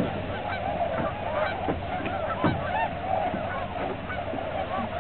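A large flock of tundra swans calling together: a steady chorus of many overlapping honking calls, with no single bird standing out.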